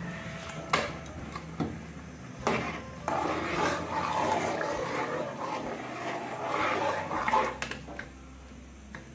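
Steel ladle stirring thick simmering milk and rice in a large metal pot: a few knocks of the ladle against the pot in the first couple of seconds, then several seconds of sloshing and scraping as the pudding is stirred and scooped.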